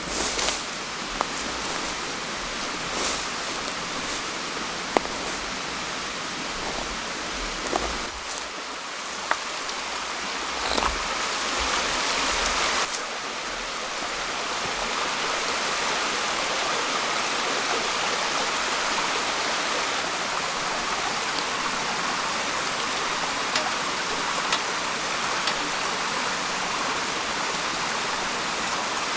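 Steady rushing of a nearby stream, with scattered sharp clicks and taps in the first half. A louder stretch of rushing cuts off suddenly about halfway through.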